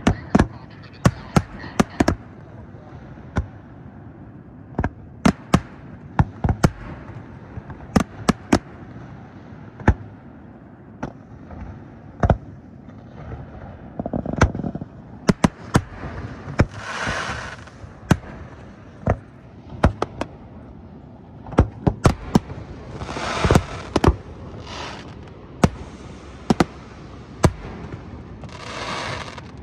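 Aerial fireworks shells of a professional display bursting in an irregular barrage of sharp bangs. Several hissing bursts lasting about a second each come in among them in the second half.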